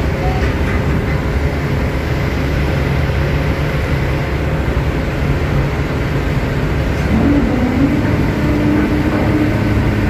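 Steady loud rumble of a ship at sea with a low hum, heard on deck while a rescue boat is lowered on its davit. A higher steady tone joins about seven seconds in.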